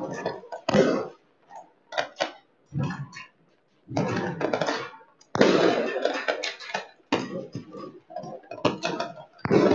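New Year's firecrackers and fireworks going off across the city: an irregular run of sharp bangs and crackling bursts, with a longer dense crackle about five to seven seconds in.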